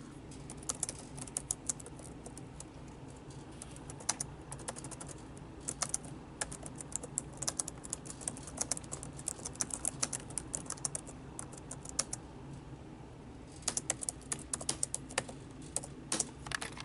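Typing on a computer keyboard: quick, irregular keystrokes in bursts, with a pause of about a second and a half about three-quarters of the way through.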